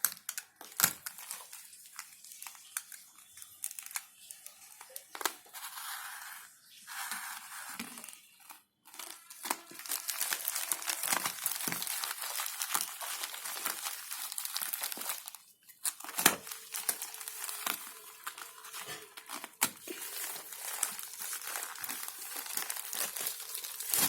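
Courier parcel packaging being torn and crumpled open by hand: irregular crinkling and tearing with scattered clicks, sparse at first and then almost continuous through the second half.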